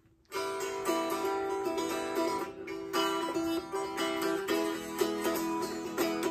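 Electric baritone ukulele with wire strings, played unplugged: a run of plucked notes and chords starting about a third of a second in.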